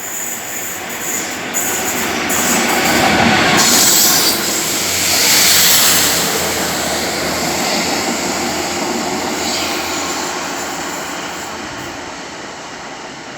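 Electric passenger train moving along the platform, loudest about four to six seconds in, then fading steadily as it draws away.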